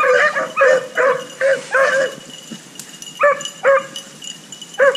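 Beagle hounds barking as they run a rabbit's scent line, giving tongue after picking up the trail: a quick run of about six short barks in the first two seconds, then a gap and three more spaced-out barks.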